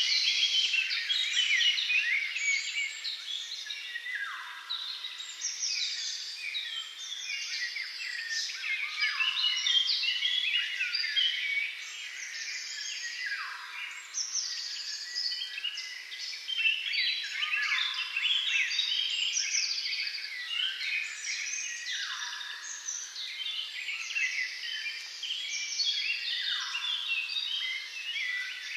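Dense chorus of songbirds: many overlapping chirps and trills, with the same falling sweep coming back about every four and a half seconds.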